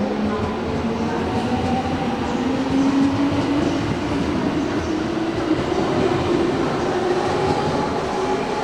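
Electric commuter train on the platform, its traction motors whining with a tone that rises slowly in pitch and then holds steady as the train gathers speed, over the rumble of the wheels on the rails.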